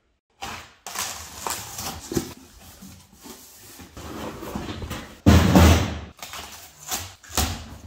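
A cardboard box being opened: packing tape slit with a box cutter and pulled off, the cardboard rustling and scraping, with the loudest thud of the cardboard lasting under a second about five seconds in.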